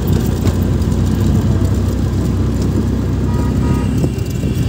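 Steady engine rumble and road noise of a moving auto-rickshaw, heard from the passenger seat.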